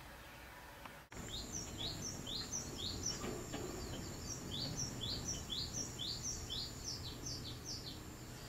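Birdsong played through a television on a nature programme: a bird repeating short, falling chirps, about three a second, starting about a second in, over a steady low hum.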